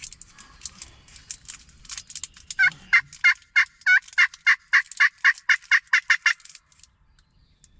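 Wild turkey yelps: a steady run of about fourteen evenly spaced yelps, about four a second, starting a few seconds in and lasting nearly four seconds. Light clicking and crinkling comes before them.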